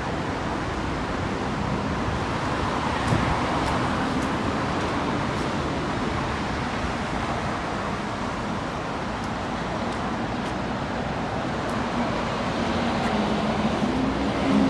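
Steady city street traffic noise from cars and buses on the road, with a low engine hum swelling near the end.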